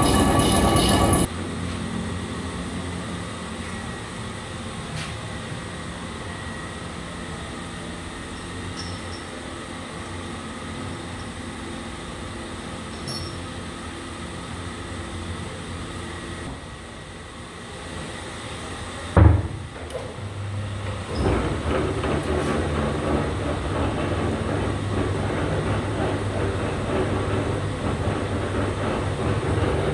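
Lathe machinery running in a workshop, a steady mechanical hum and rumble. A louder noise cuts off about a second in, there is one sharp knock about two thirds of the way through, and after it the machine runs louder and steady.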